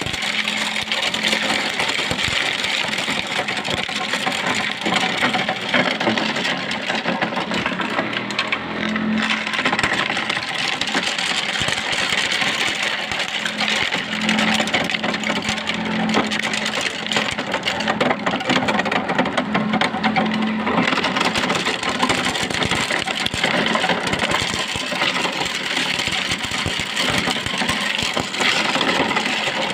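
Motorized corn sheller running steadily, with a dense rattle of corn kernels being stripped from the cobs over the drone of its motor.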